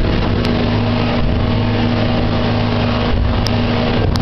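KS-700 motor boat's engine running steadily under way, a constant hum over water and wind noise, with a few short clicks.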